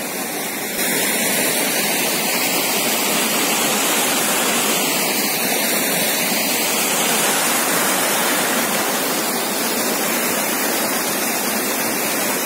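Water from a canal pouring over a stone weir into a channel, a steady rush of white water that is a little louder from about a second in. Speakers call it a terrific water sound.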